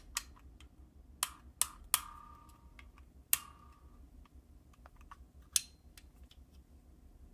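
Scattered sharp clicks and light metal taps from handling a new VW carburetor and its parts, two of them ringing briefly.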